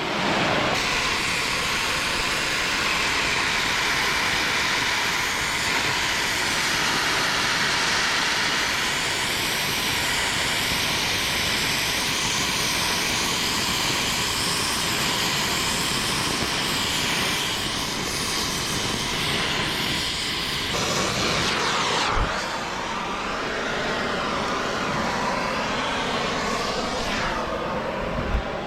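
Gas heating torch running steadily with a loud hiss while steel is heated red to be straightened; the sound shifts about three-quarters of the way through, with a single sharp knock.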